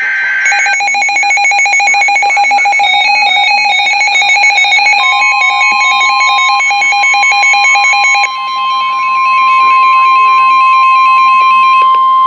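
NOAA Weather Radio emergency alert tones. A brief burst of SAME header data opens it, followed by a fast warbling electronic alarm that stops about eight seconds in. About five seconds in, the steady 1050 Hz Weather Radio warning tone comes in under the warble and holds.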